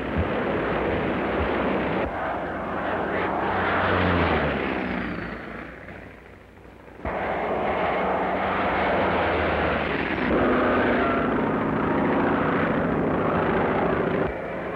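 Propeller-driven military aircraft engines running loud, the pitch falling as one passes, fading out around six seconds in, then cutting back in abruptly about a second later.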